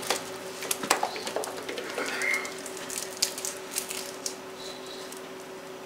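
Plastic squeeze bottle of ranch dressing being squeezed over diced potatoes in a glass bowl: scattered small clicks and a short squirting squeak about two seconds in. A steady low hum runs underneath.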